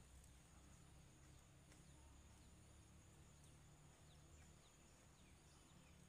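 Near silence: faint outdoor ambience with a low rumble and a few faint, short, falling high chirps.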